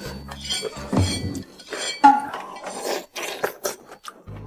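Chopsticks tapping and clinking against porcelain bowls and plates as food is picked up: a quick run of small clicks, with one brighter ringing clink about two seconds in.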